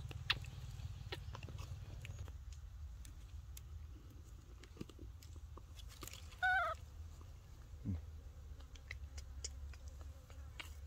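A baby macaque gives one short, wavering high squeal about six seconds in, over soft scattered clicks and rustles.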